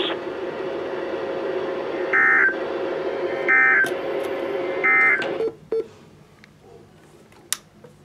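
RadioShack NOAA weather radio sounding the Emergency Alert System end-of-message code: three short bursts of data tones about a second and a half apart, over a steady hum and hiss, marking the end of the alert. The receiver then falls quiet, with a single sharp click near the end.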